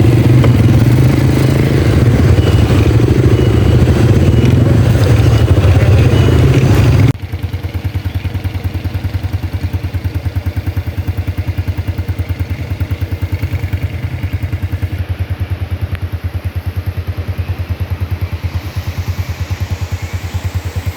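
A vehicle engine running close to the microphone. It is loud for about the first seven seconds, then drops abruptly to a quieter, steady run with a fast, even pulse.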